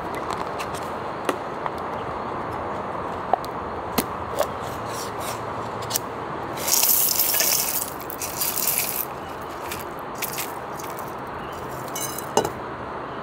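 A foil seal is peeled off the rim of a snack canister with a loud tearing rip about halfway through, followed by crinkling of the foil. Before it there are a few light clicks of the plastic lid and can being handled, and near the end a sharp tap as the can is tipped over a glass bowl of dried kelp. A steady background hiss runs underneath.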